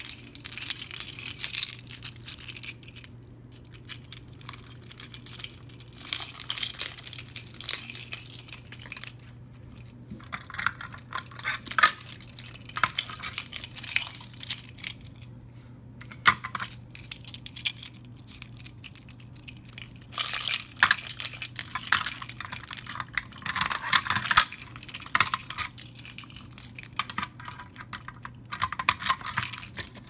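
Scattered clicks, clinks and rattles of a key-locked fire alarm pull station being handled and opened, its housing and parts knocking together in bursts.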